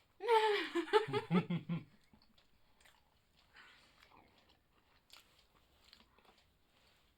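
A short, loud burst of a person's voice in the first two seconds, starting high and bending, then breaking into quick pulses. Faint chewing of pizza follows.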